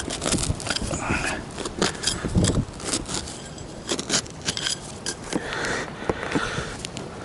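A hand digger cutting into soil: a run of irregular scrapes, knocks and clicks from the blade working the ground.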